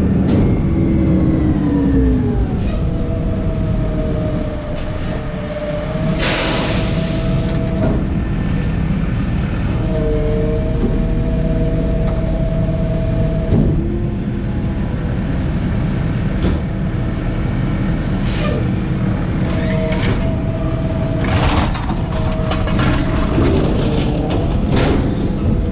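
Peterbilt McNeilus ZR garbage truck pulling to a stop. Its diesel engine drops in pitch, then idles with a steady whine, and a loud air-brake hiss comes about six seconds in. Sharp knocks and clatters follow in the second half as recycling is tossed into the hopper.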